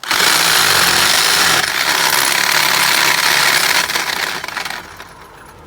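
A power tool running under load, cutting or drilling to widen a wall hole that is too small for the replacement spigot. The loud noise starts suddenly and stops about five seconds in, dropping to a much quieter steady noise.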